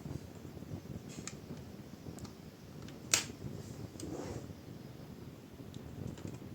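Plastic clicks and snaps from a laptop's bottom casing being pried open, over a low handling rumble; the sharpest snap comes about three seconds in, with smaller clicks about a second in and about four seconds in.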